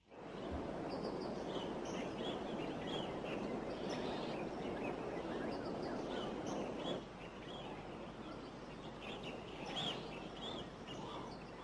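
Rainforest ambience: many short bird chirps over a steady rushing background that thins about seven seconds in.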